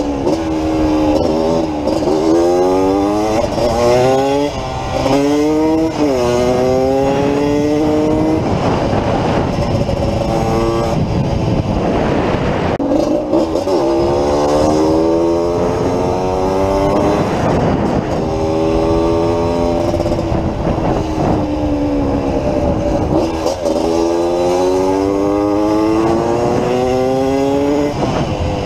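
Yamaha DT180's single-cylinder two-stroke engine accelerating through the gears while riding. The engine note climbs and then drops back at each upshift, several times over, with a steadier stretch between pulls.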